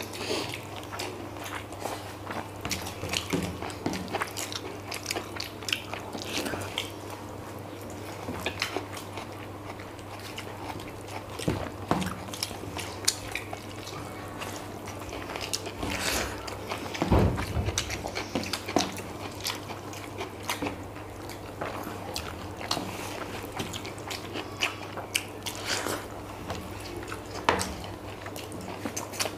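Close-up eating sounds of chilli chicken legs and fried rice eaten by hand: wet chewing, smacking and biting, with fingers squishing rice on the plates. A steady low hum runs underneath, and there is one louder low thump a little past halfway.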